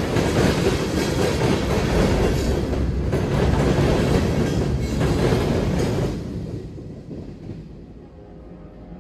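Freight train cars (tank cars, then open hoppers) rolling past with a steady wheel rumble. The last car goes by about six seconds in and the sound fades away.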